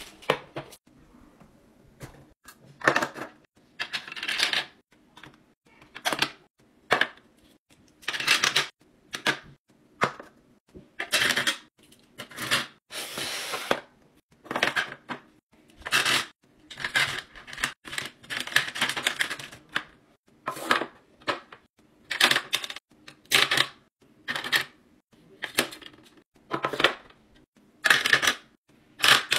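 Pens, markers and clear hard-plastic drawer organizers clacking and rattling as they are set down and sorted into a drawer: irregular short clatters about once a second, with a longer rustle midway.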